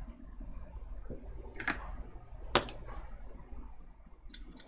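A few separate sharp clicks and taps, the loudest about two and a half seconds in and a small cluster near the end, over a low steady hum.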